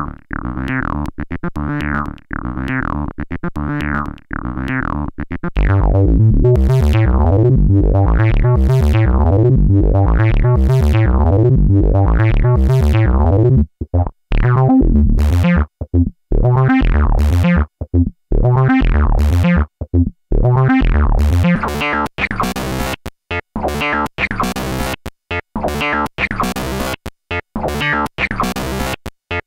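Experimental electronic music played on synthesizers: rapid repeating synth pulses with falling pitch sweeps. It turns louder and denser about six seconds in, then turns stuttering and choppy with short dropouts and sharp noisy hits in the second half.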